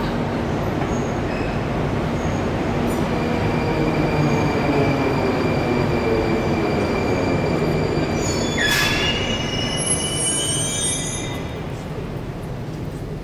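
Moscow metro train pulling into the station and braking to a stop: a steady rumble of wheels on rail with a slowly falling motor whine. About two thirds of the way in comes a click and a high brake squeal that rises slightly in pitch, then dies away as the train halts.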